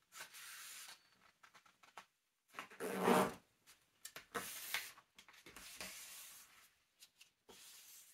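A sheet of paper being folded and handled, rustling in several short bursts, the loudest about three seconds in.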